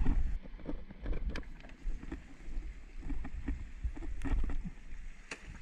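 Wind rumbling on the microphone and sea water washing against rocks, with scattered light knocks and clicks.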